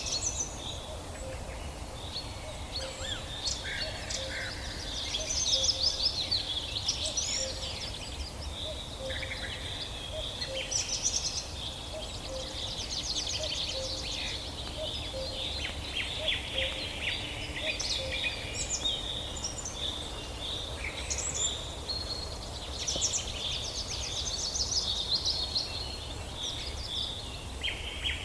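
Several birds singing and calling together in a forest: overlapping chirps, trills and rapid runs of repeated notes, over a steady low rumble.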